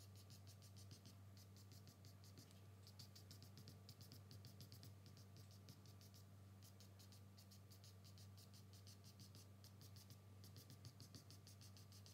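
Drawing charcoal stick scratching across paper in runs of quick, short hatching strokes with brief pauses, faint, over a low steady hum.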